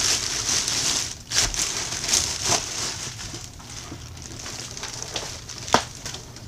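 Clear plastic bag rustling and crinkling in uneven bursts as a bread maker wrapped in it is handled and turned over, with one sharp knock near the end.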